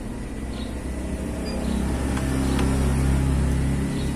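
Motor vehicle engine running on the road, a low hum that grows louder, is loudest about three seconds in and eases just before the end. A few faint ticks sound over it.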